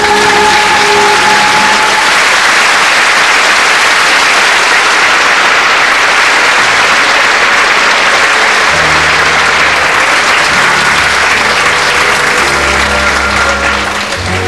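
Audience applauding. A held final chord dies away in the first couple of seconds, and low instrumental notes from the band come in under the clapping about two-thirds of the way through.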